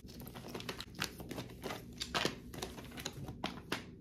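Wooden tangram sets in their wooden trays being handled, giving a run of irregular light wooden clicks and knocks.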